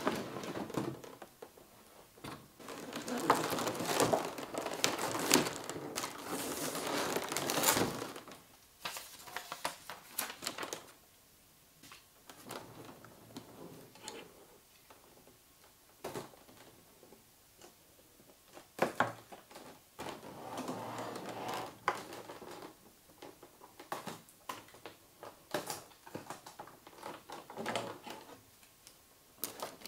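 Clear plastic packaging crinkling and rustling as a boxed figure is unpacked, with short clicks and knocks of the rigid plastic insert. The rustling is densest in the first eight seconds, then comes in scattered short bursts.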